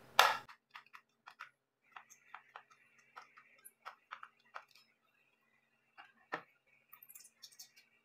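A screwdriver turning out the screw that holds an electric iron's metal weight plate: two sharp clicks at the start, then a run of small, irregular metal ticks and scrapes, and a single knock about six seconds in.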